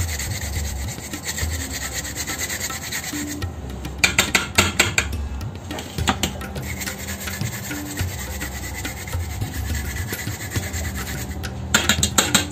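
Fresh ginger being grated on a hand grater, a steady rasp of quick scraping strokes. A few sharper knocks come about four seconds in and again near the end.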